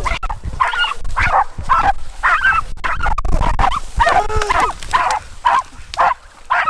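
Bear hounds barking and yipping repeatedly, about two short calls a second.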